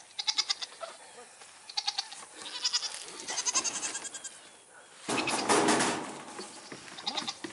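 Goats calling: several short runs of rapid, chattering pulses, and a louder, harsh call lasting about a second, about five seconds in.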